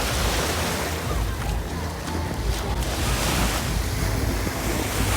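Wind buffeting the microphone, with lake water lapping in small waves.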